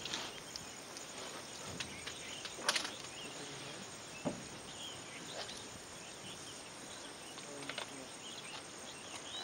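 Steady outdoor insect chorus, with a few faint high chirps and a couple of sharp knocks, the first about three seconds in.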